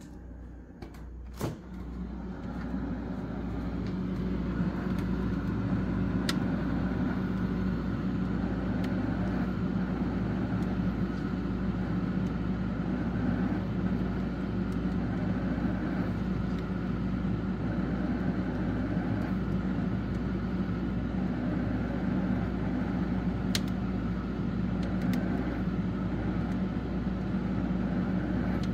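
Whirlpool appliance making an unexplained grinding noise: a click about a second and a half in, then a motor-driven grinding hum that builds over a few seconds and runs steadily.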